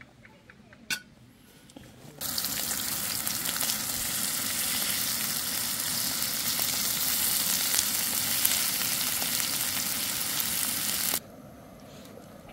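Thin-sliced beef brisket (chadolbaegi) sizzling loudly and evenly on a hot griddle over a gas burner, while chopsticks turn it. The sizzle starts suddenly about two seconds in and cuts off near the end, after a single sharp click about a second in.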